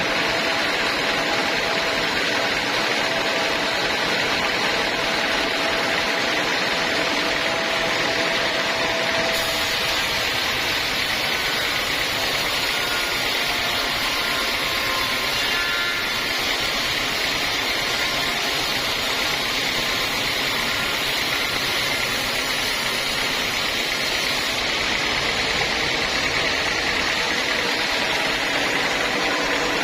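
Sawmill machinery running steadily, a constant mechanical drone; a faint steady whine in it stops about nine seconds in.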